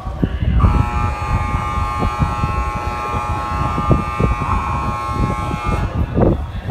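A steady, buzzer-like electronic tone with several pitches held together switches on about half a second in, sounds for about five seconds and cuts off sharply, over the low rumble of a station platform.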